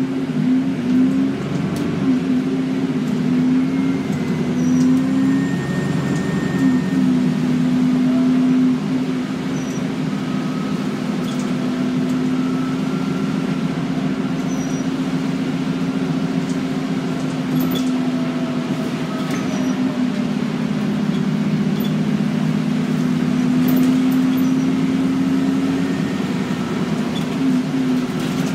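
Alexander Dennis Enviro400 bus's diesel engine running with a steady drone that wavers slightly in pitch. A faint high turbocharger whistle comes and goes over the engine sound.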